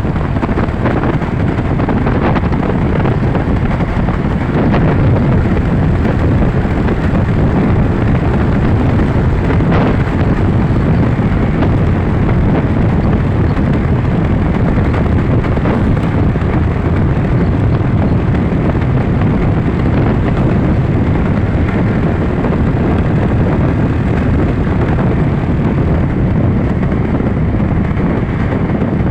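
Steady wind buffeting the microphone over the drone of a moving vehicle's engine and road noise.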